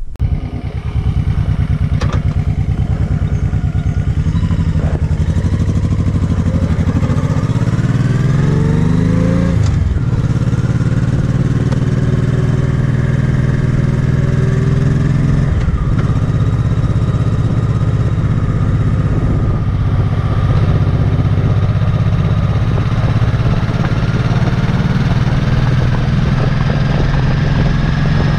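2006 Honda Shadow Sabre's V-twin engine idling, then pulling away. The revs climb through first gear, drop at a gear change about ten seconds in, climb again, and drop at another change at about fifteen seconds. After that it settles into a steady cruise.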